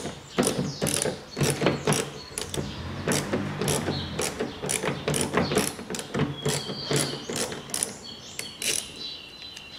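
Hand ratchet on an extension clicking in quick, repeated back-strokes as it unscrews a self-tapping screw, roughly two or three clicks a second, thinning out near the end.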